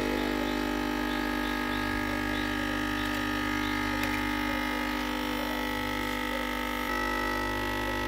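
Nespresso capsule machine's vibratory pump humming steadily while brewing, a stream of coffee running into the cup. Its tone shifts slightly about seven seconds in.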